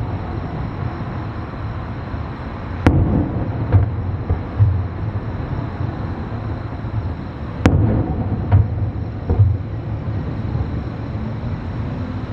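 Distant fireworks going off: sharp bangs of shells bursting, two louder ones about three and eight seconds in, each followed by a few fainter cracks, over a steady low rumble.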